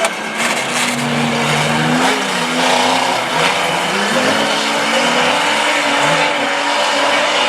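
Several banger racing cars' engines running hard around the track, their pitches rising and falling as they rev through the laps, over a steady haze of track noise.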